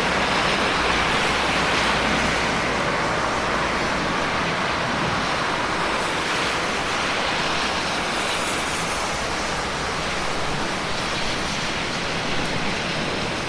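Steady rain falling, a dense, even hiss.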